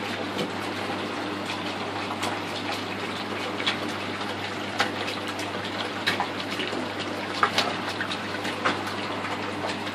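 Steady rush and trickle of water from a bank of aquarium tanks' filters and air pumps, over a low steady pump hum, with scattered sharp clicks or splashes, most of them in the second half.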